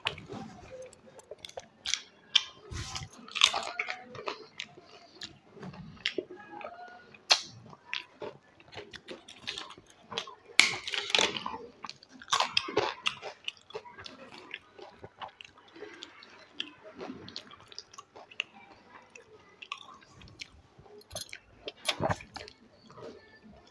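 Close-miked eating: crisp aloo papad dipped in custard kheer being bitten and chewed, with sharp crunches at irregular intervals, the loudest around the middle.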